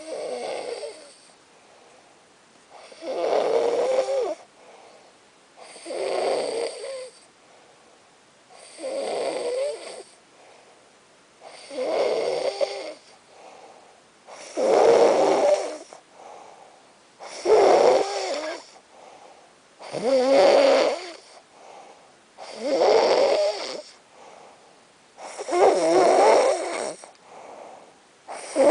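Snoring in a slow, regular rhythm: a loud, rasping snore about every two and a half to three seconds, with a faint breath between snores.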